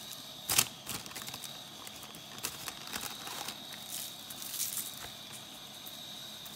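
A shaker can of Cajun Creole seasoning being shaken and tapped over raw pork chops: one sharp knock about half a second in, then scattered light taps and ticks.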